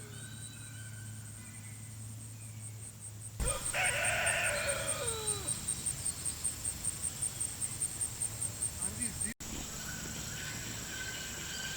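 A rooster crows once, a long call falling in pitch about three and a half seconds in, over a fast, high-pitched pulsing in the background.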